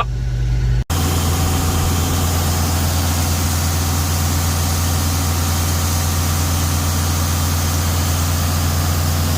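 An engine running steadily with an even low hum. About a second in, the sound drops out for an instant, then carries on with more hiss over the hum.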